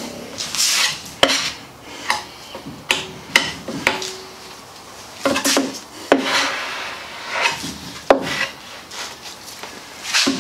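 A spreader scraping and smearing epoxy fairing compound across a wooden boat bow: about a dozen irregular swipes and scrapes, some ending in a sharp tap.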